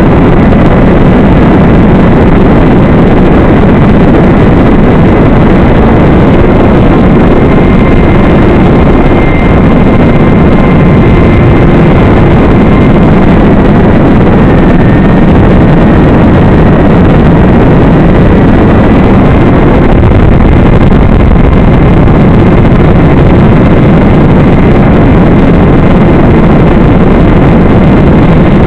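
Loud, steady rushing noise from the onboard audio of an FPV model plane in flight: wind and motor noise, with a faint wavering whine.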